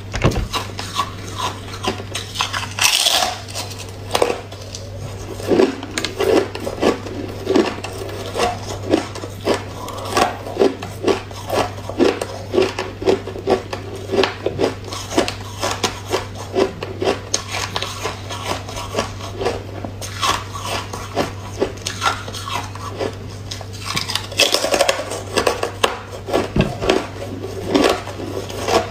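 Close-up crunching of someone biting and chewing thin slabs of hard ice, a quick run of crisp cracks several times a second. Louder, brighter bites come about three seconds in and again near the end. A steady low hum runs underneath.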